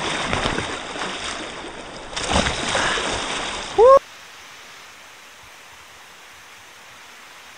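Turbulent whitewater rushing and splashing close around a kayak under paddle strokes, with a short rising shout near four seconds in. Then the sound drops suddenly to a steady, faint hiss of river rapids.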